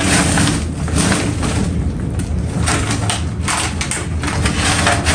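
Groceries being packed back into a shopping bag: irregular crinkling rustles with soft knocks as the items go in.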